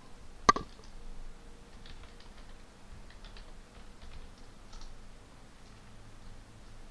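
Computer keyboard keystrokes typing a short command: one louder key click about half a second in, then light, quick keystrokes in small runs.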